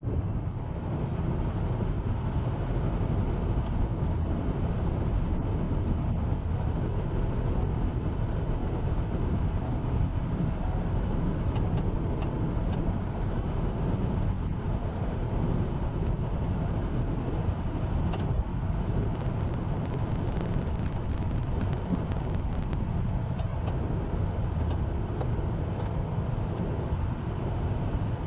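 Snow-plow truck driving over snow, a steady low rumble of engine and road noise heard from inside the cab. A patch of faint sharp clicks comes about two-thirds of the way in.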